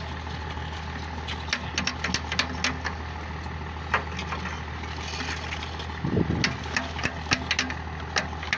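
Road roller's engine running steadily with a low hum, overlaid by many short sharp clicks and a brief louder rumble about six seconds in.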